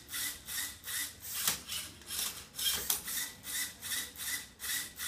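LEGO Mindstorms EV3 MindCuber robot's motors and plastic gears whirring and rubbing as it turns a Rubik's cube, in an even pulsing rhythm of about two to three surges a second.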